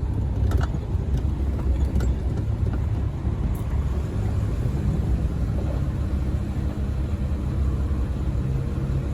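Steady low rumble of a running car heard from inside the cabin, with a few faint clicks in the first two seconds.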